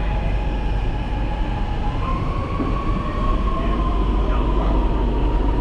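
Metro train running: a steady low rumble with a whine that steps up in pitch about two seconds in and then slowly sinks.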